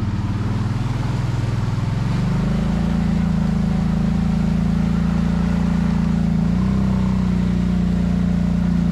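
ATV engine running under steady throttle. Its pitch rises about two seconds in and then holds level.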